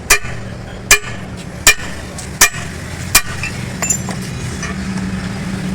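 Hammer striking steel during a truck drive shaft universal joint cross replacement: five sharp ringing blows about three-quarters of a second apart, then they stop. A steady low hum runs underneath.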